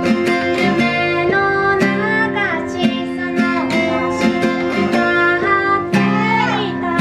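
A woman singing while strumming an acoustic guitar in a steady rhythm.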